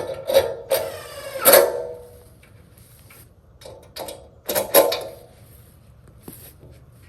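Cordless impact driver running in two short bursts, about a second in and again near the middle, driving screws.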